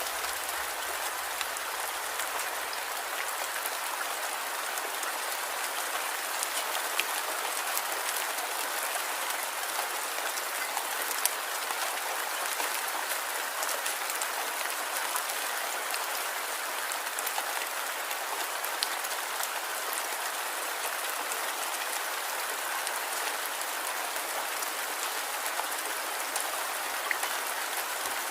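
Light rain falling steadily, a constant hiss with scattered individual drop ticks.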